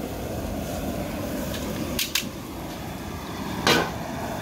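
Propane burner under a crawfish boiling pot running steadily, with two quick sharp knocks about two seconds in and a louder one near the end.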